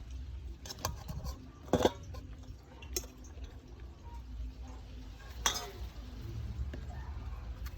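Cooking utensils clinking against a pot: a few sharp knocks with short ringing, the loudest about two seconds in, over a steady low rumble.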